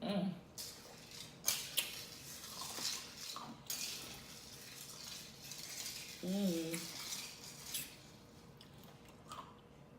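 A spoon clinking and scraping in a bowl of soda-soaked crushed ice, with a string of sharp clicks and crunches as the ice is scooped and eaten. A short hummed vocal sound comes about six seconds in.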